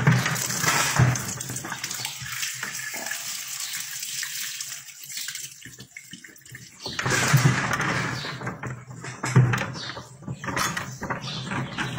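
Wet sloshing and splashing of birth fluids as a calf is pulled by hand from a cow during an assisted calving, in two louder bouts with a quieter pause between.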